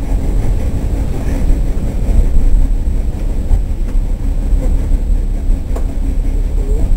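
Rail vehicle's engine running with a steady low rumble, heard from the driver's cab as the train moves slowly along the track. Two short sharp clicks come about four and six seconds in.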